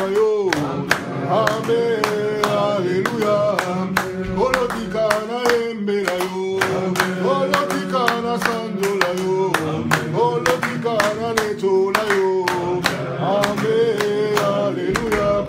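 A group of people singing a worship song together to steady, regular hand-clapping.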